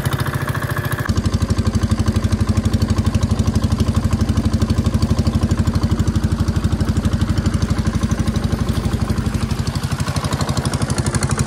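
Long-tail boat engine running under way with a fast, even putter. The engine note steps up about a second in, then holds steady.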